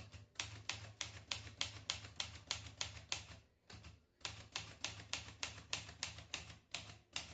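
Olivetti Lettera 32 manual typewriter being typed on key by key, running through the letters and numbers as a test. The type bars strike about five times a second, with a short break about three and a half seconds in.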